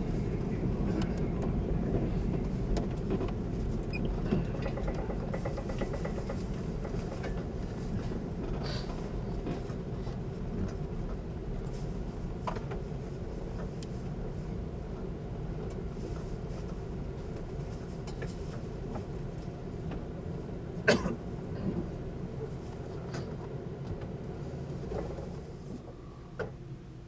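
Running noise of a JNR 583 series sleeper train heard from inside the car over the motor-car bogie: a steady low rumble that slowly dies down as the train slows. There is one sharp knock about two-thirds of the way through and a few light clicks near the end.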